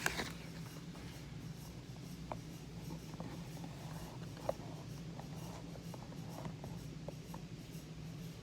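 Faint scratching and scattered light clicks of hands handling small items, over a steady low hum.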